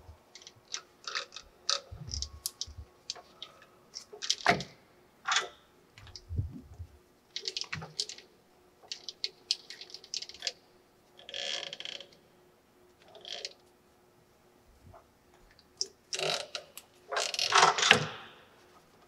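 Rubber V-belts being worked by hand onto the multi-groove motor pulley of a Colchester Triumph 2000 lathe: irregular clicks and light knocks as the belts and pulley are handled, with a few longer rubbing scrapes, the loudest near the end.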